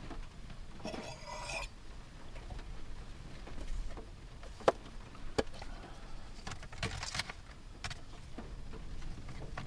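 Kitchenware being handled: a brief scrape about a second in, then scattered sharp clinks and knocks of utensils and dishes, over a steady low rumble.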